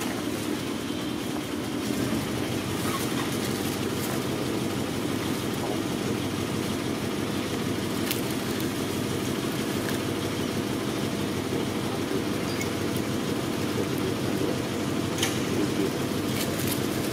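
Steady low rumble like an idling engine, with a few faint clicks.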